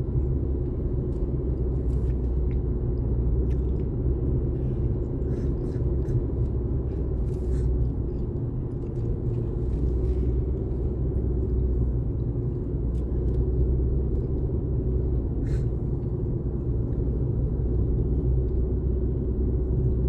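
Steady low rumble of a vehicle driving along, heard from inside the cabin, with a constant hum and a few faint ticks.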